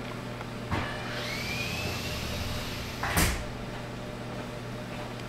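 A low steady hum with a faint thump a little under a second in and a louder short knock about three seconds in, like a cupboard door or a bump against furniture.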